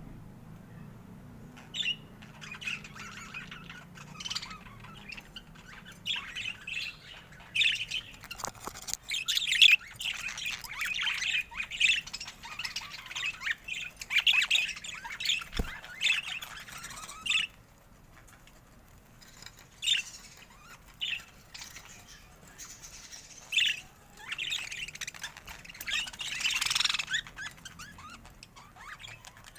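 Budgerigar chatter: quick warbling chirps and squawks, busiest through the first half, thinning out for a few seconds after the middle before picking up again.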